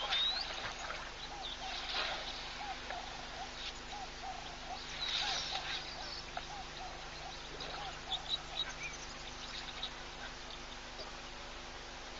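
Wildlife calls: a short, low call repeats about three times a second and stops about seven seconds in. Scattered high bird chirps and whistles sound over it.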